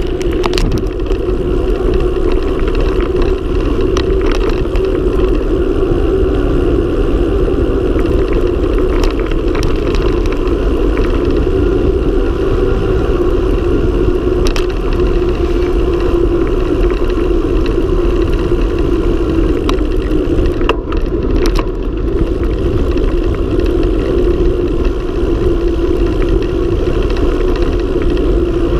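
Steady wind rush and road noise from a mountain bike descending a paved mountain road at speed, with a few light knocks from bumps in the asphalt.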